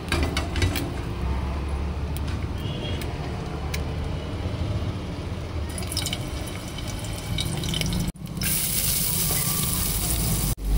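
Hot oil in an aluminium pot on a gas stove, over a steady low burner rumble. It hisses and ticks, then crackles and sizzles more brightly from about halfway through as green chillies go in.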